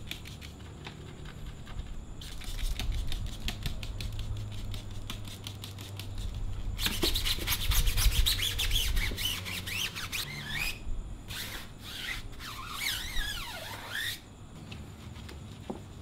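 A handheld brush scrubbing a foamy, wet alloy wheel in quick back-and-forth strokes, loudest in the middle. Near the end there is a shorter burst of rubbing with squeaks.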